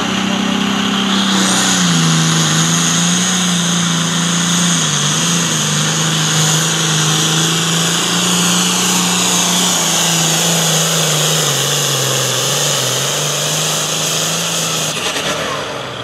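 Turbocharged diesel engine of a John Deere hot farm pulling tractor at full power hauling the sled, with a high turbo whine that rises about a second in and then slowly falls. The engine note sags a little as it bogs toward the end of the pull, then the sound cuts off suddenly about a second before the end.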